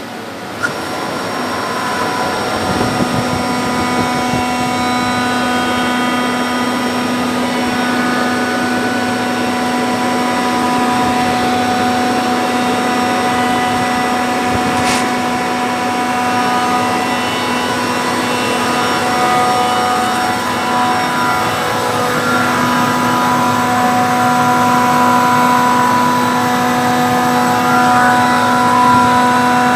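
Trane RTAC air-cooled chiller's screw compressor running steadily: a loud machine hum carrying a whine of several held tones. A single short click about halfway through.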